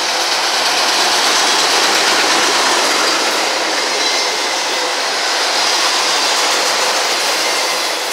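Autorack freight cars rolling past close by: a loud, steady rush of steel wheels on the rails.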